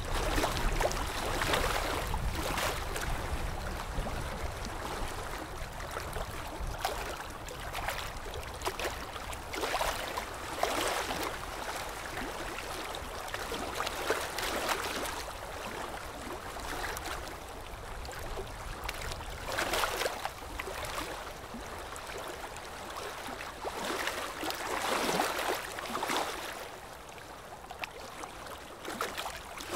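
Ultrasonic dental scaler running with its water spray, removing tartar from the lower front teeth. It makes a hissing, gurgling wash that swells and fades every second or few as the tip is worked against the deposits.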